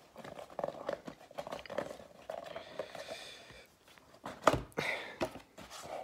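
Cardboard gift box being handled and opened: rustling and scraping of card with scattered light knocks, and one sharper knock about four and a half seconds in.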